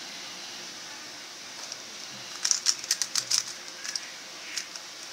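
Rubik's Cube layers turned by hand: plastic clicks and clacks, with a quick run of sharp clicks about halfway through and a few scattered ones after, over a steady hiss.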